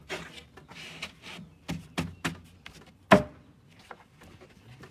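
Wooden cabinet parts knocking as a glued toe-kick piece is fitted into the cabinet: a short sliding scrape, then a few sharp knocks, the loudest about three seconds in.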